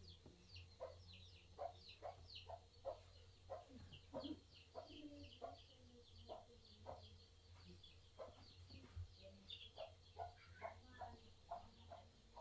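Faint chickens clucking and calling, short calls coming about two a second, over a low steady hum.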